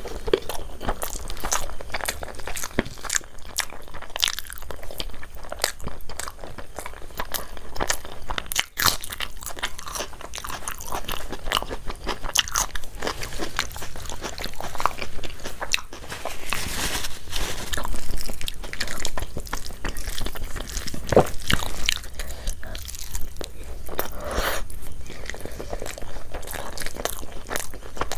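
A person eating close to the microphone: chewing with many short, crisp crunches and crackles in an uneven run.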